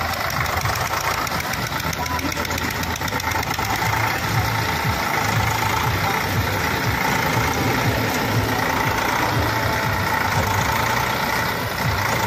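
Diesel tractor engines running steadily, a pulsing low hum: the Eicher 485 standing with its loaded trolley, and the front-loader tractor working alongside.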